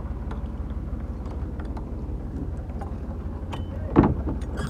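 Tractor's diesel engine running steadily with a fast low throb and a few light clicks. A brief loud sound breaks in about four seconds in.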